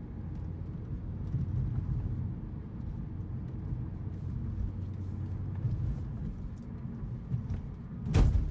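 Cabin sound of a BMW E92 3-series coupe on the move: a steady low engine and road hum. A loud thump comes near the end.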